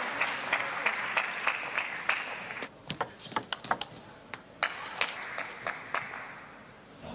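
Arena crowd applauding after a table tennis point, fading away about six seconds in. Sharp clicks of a table tennis ball on table and paddles run through it.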